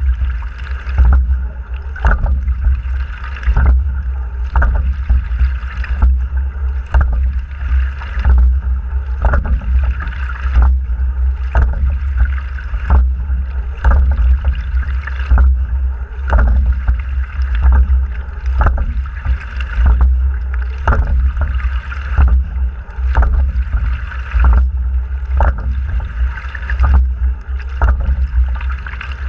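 Fluidesign single rowing scull under way: water rushes along the hull, with sharp knocks from the oars and oarlocks recurring with each stroke, over a steady low rumble.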